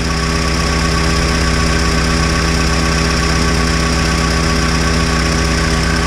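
A classic VAZ (Lada) four-cylinder engine idling steadily while the electric radiator cooling fan runs, switched on by a newly fitted fan thermoswitch. The sound stays even throughout.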